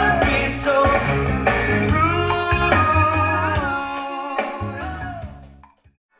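Music: a reggae-pop song with a male singing over drums and guitar, fading out near the end.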